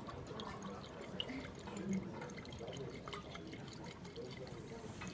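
Liquid sloshing in a glass Erlenmeyer flask being swirled by hand under a burette while titrant is run in, with small scattered ticks and drips.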